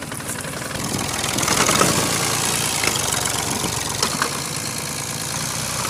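Fiat 480 Special tractor's diesel engine running hard under heavy load. It grows louder about a second in, then holds steady.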